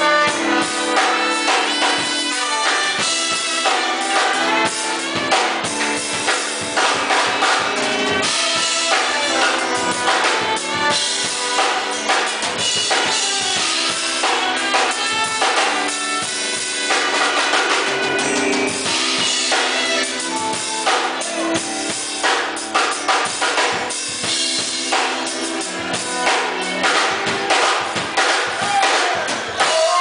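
Live band playing: a drum kit keeping a steady beat under saxophone, trombone and violin.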